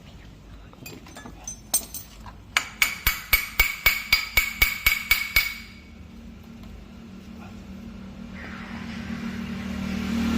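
A hammer strikes metal about a dozen times in quick, even taps, about four a second, with a bright metallic ring: a new bearing being driven into a car AC compressor. A rising rumbling noise builds toward the end.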